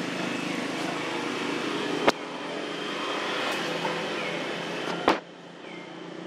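Steady hum of a running vehicle engine, with two sharp knocks about two and five seconds in. Just after the second knock the hum drops much quieter.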